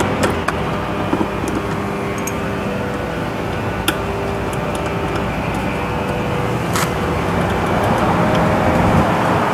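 Steady mechanical drone of a running engine or motor, with a low hum. Two sharp clicks sound, about four and seven seconds in.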